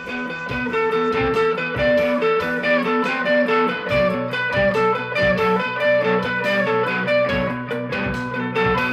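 Background music: a guitar tune with a steady beat, which fills out with a bass line about four seconds in.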